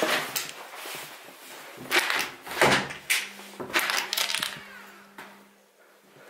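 A series of knocks and clattering thuds, the loudest about two and three seconds in, with a faint steady hum coming in about three seconds in.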